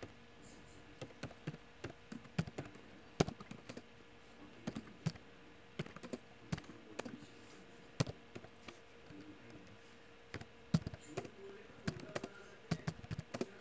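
Computer keyboard typing: irregular keystroke clicks in quick runs with short pauses, over a faint steady hum.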